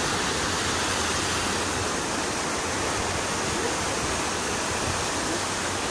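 Fountain jets splashing down into a pond: a steady, even rush of falling water.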